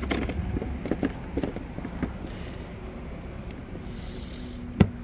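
Light plastic clicks and knocks from handling a Mazda's air filter housing lid, then one sharp snap near the end as a latch clip on the airbox closes.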